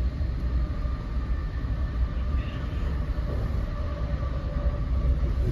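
Interior running noise of an NJ Transit Multilevel commuter rail coach in motion: a steady low rumble of wheels on rail, with a faint steady whine above it.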